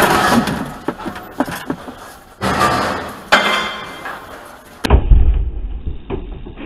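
Pieces of scrap metal clanking and rattling as they are handled and tossed, with several sharp knocks. About five seconds in the sound cuts abruptly to a low rumble with a thump.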